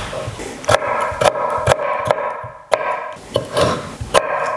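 Chef's knife cutting a red bell pepper on an end-grain wooden cutting board: about half a dozen sharp knocks of the blade on the board at uneven intervals.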